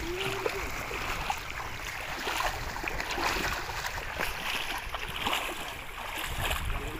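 Water sloshing and splashing around the legs and feet of people wading through shallow river water beside a wooden boat, with steady wind rumble on the microphone.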